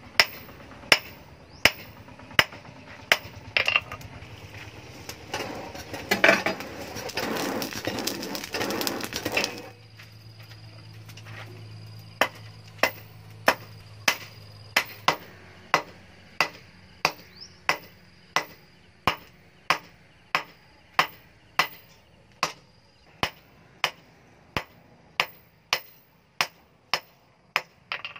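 Hand hammer forging a red-hot steel knife blank on a stump anvil: sharp, evenly spaced metal strikes, about three every two seconds. A denser, noisier clatter of a few seconds breaks the rhythm near the middle.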